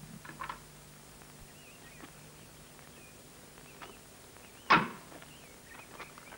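A car door is slammed shut once, a single sharp, loud thud about three-quarters of the way through. There are a few faint clicks near the start.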